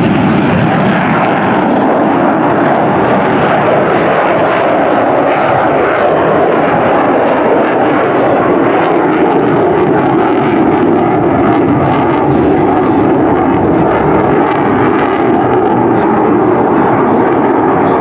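Jet engine noise from an F-35 fighter's single Pratt & Whitney F135 turbofan, loud and steady, as the jet climbs away after takeoff and turns overhead.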